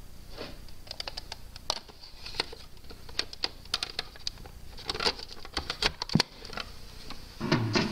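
Plastic clicks and scraping of an 8-track tape cartridge being handled and slid into a Lear Jet Stereo 8 player, with a solid clunk about six seconds in as the cartridge seats. Music from the tape starts just before the end.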